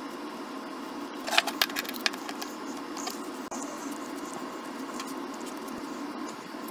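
A half-inch NPT thread tap being turned by hand with a wrench into a 3D-printed plastic part. There is a cluster of sharp clicks between about one and two seconds in, then scattered faint ticks, over a steady hiss.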